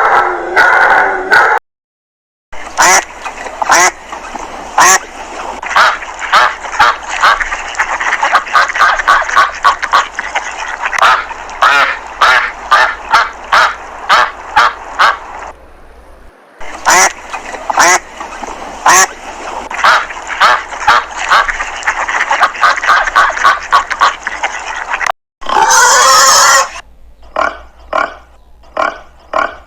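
Farm animals calling: dense runs of short, rapidly repeated calls in several separately cut recordings, with sudden brief silences between clips about 2 s, 16 s and 25 s in.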